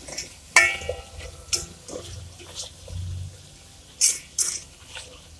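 A spatula stirring and scraping chopped onions, tomatoes and whole spices in a large aluminium pot, with a few sharp knocks against the pot. The first knock, about half a second in, leaves the pot ringing briefly.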